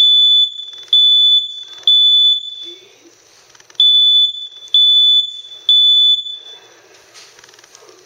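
Household smoke alarm sounding on its test button: loud, high-pitched beeps in the temporal-three pattern, two groups of three half-second beeps with a pause between them. The beeping stops about six and a half seconds in.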